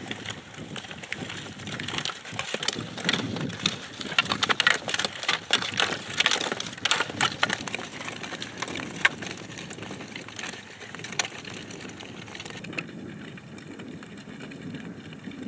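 Cross-country skis and poles clattering as several skiers stride across grass: irregular clicks and taps over a rustling background, thickest in the middle and thinning out after about nine seconds.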